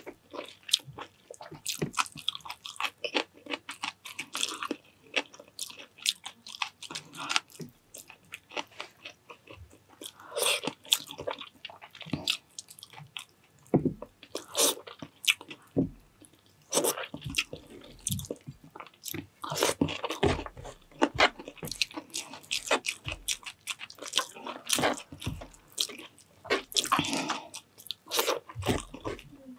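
A person chewing and biting food close to the microphone, with crunching and many sharp, irregular mouth clicks.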